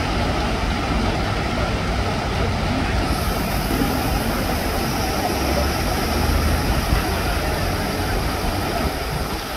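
Busy city traffic ambience: a steady wash of road vehicle noise with engines idling and passing, with faint voices of people mixed in.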